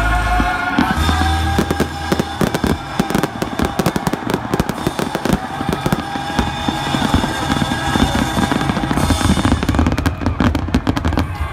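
Fireworks display firing a dense, rapid run of pops and bangs from aerial shells and fountains, with music playing underneath.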